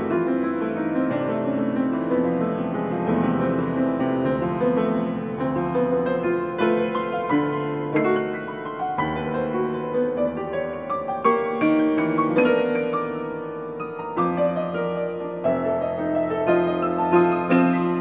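Baldwin grand piano played solo: a quick, flowing run of notes that ebbs in loudness around the middle, then returns with sharper accented chords near the end.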